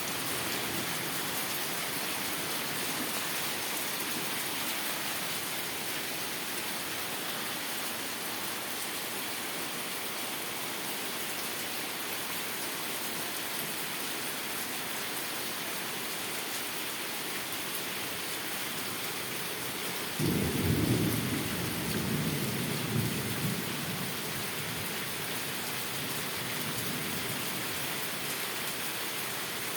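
Heavy downpour, rain falling steadily. About two-thirds of the way in a rumble of thunder starts suddenly and rolls on for a few seconds, the loudest sound here.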